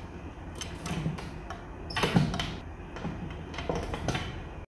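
Irregular knocks and thumps of a bullfrog and its live prey moving and lunging in a glass tank, the loudest about two seconds in, over a low steady hum.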